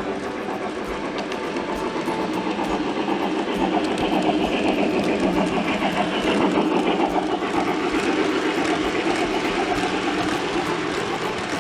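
Model Mikado steam locomotive and its passenger cars running past on model track: the wheels rumble with a rapid, even clicking. The sound grows louder as the locomotive passes about six seconds in, then eases slightly as the cars roll by.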